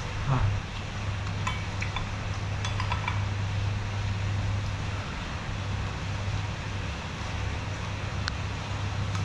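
Metal spoon clinking against a glass soup bowl a few times while someone eats, with a brief mouth sound just after the start. A steady background rush and low hum continue under it.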